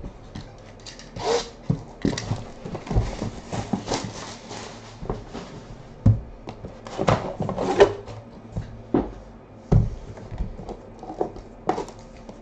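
Hands handling a cardboard trading-card box and sliding the hard case out of it: rubbing and scraping of cardboard with scattered clicks and several dull knocks.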